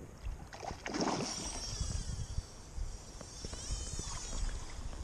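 Lapping and rippling river water at the shore, with low wind rumble on the microphone; a brief faint noise about a second in.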